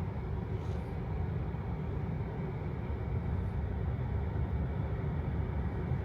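Steady low rumble of a car in motion, an even road-and-engine noise with no sharp events.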